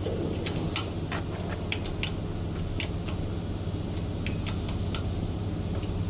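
Steady low machine hum with scattered sharp clicks and light metal clinks from hand work on the machine's parts, about a dozen at irregular intervals.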